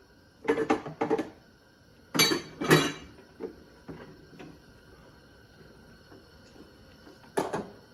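Kitchenware being handled: pots, pans and utensils clattering and knocking in a few short bursts, with quieter knocks between them.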